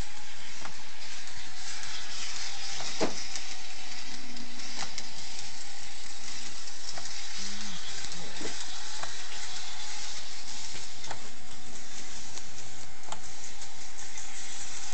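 O-scale model trains running on the layout: a steady hiss of wheels rolling on the metal track, with scattered sharp clicks as wheels cross rail joints and switches.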